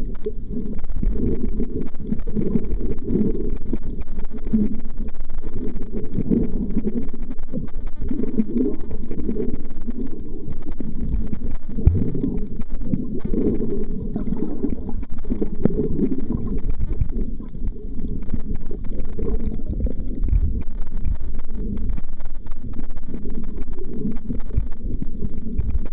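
Muffled underwater noise: a low, surging rumble of moving water that swells and fades every few seconds.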